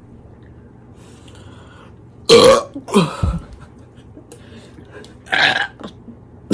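Loud deliberate human burps: a big one about two seconds in, followed at once by a second that drops in pitch, then a shorter one near the end.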